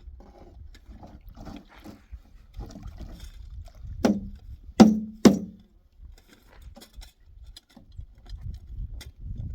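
Scattered light clicks and clatter, with three loud knocks in quick succession about four seconds in, each ringing briefly with a low, falling tone.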